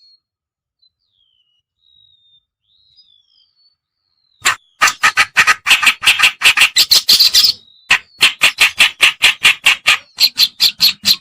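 Kerakbasi (reed warbler) song from a lure-call recording: a few faint, thin gliding whistles, then about four and a half seconds in a loud, rapid, harsh chattering run of notes, several a second, broken by two brief pauses.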